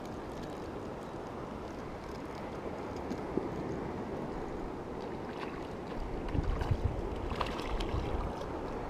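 Steady rush of water, with wind buffeting the microphone from about six seconds in.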